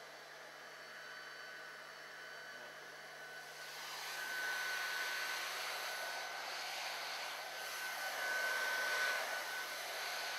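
Hot-air heat gun running, a steady fan hiss with a thin steady whine, growing louder about four seconds in as the nozzle is brought close. It is heating a heat-shrink molded boot so that it shrinks down onto the cable.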